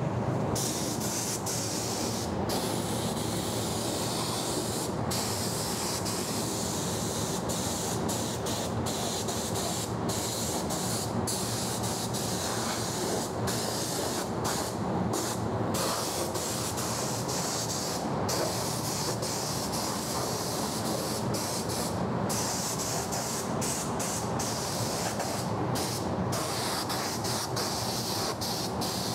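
Gravity-feed paint spray gun spraying with a steady air hiss, cutting out briefly many times as the trigger is released between passes.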